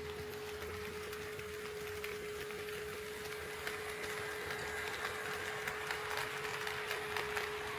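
HO-scale model train running on track: a motor whir and rapid clicking of wheels over rail joints that grow louder from about halfway through as it approaches. A steady humming tone runs under it.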